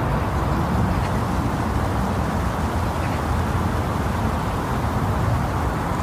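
Wind blowing steadily: a deep, even rush of noise without clear gusts.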